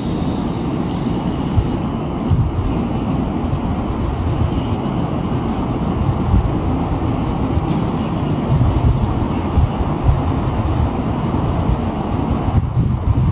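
Electric train running on the line, a steady low rumble of wheels and running gear.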